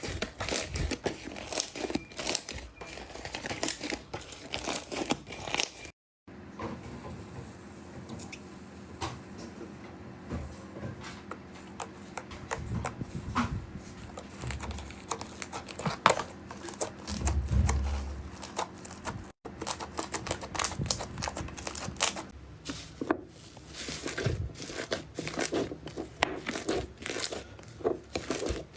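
Slime being handled close to the microphone: a dense run of small crackles, clicks and squelchy pops. It breaks off sharply twice, and a quieter stretch in the middle has a faint steady hum under it.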